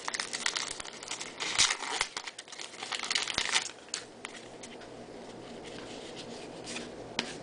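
Crinkling and rustling of a trading-card pack wrapper and baseball cards being handled, in bursts through the first three and a half seconds, then quieter.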